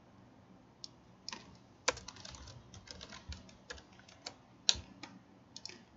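Typing on a computer keyboard: irregular key clicks in short runs with brief pauses between them.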